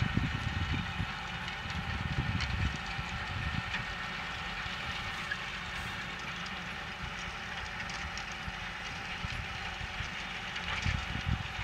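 Tractor pulling a seed drill across a worked field, a steady mechanical running and rattling noise. Low rumbling thumps come in over the first few seconds and again near the end.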